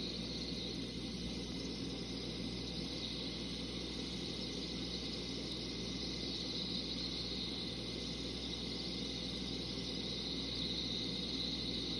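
Steady, even hiss with a low hum underneath and no distinct events.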